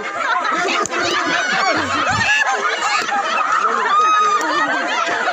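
A crowd laughing and shouting over one another, many voices at once, with one high-pitched shout about four seconds in.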